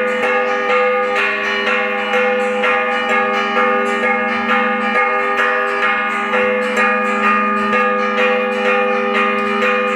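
Church bells ringing loudly in a rapid, continuous peal, many tones struck over and over.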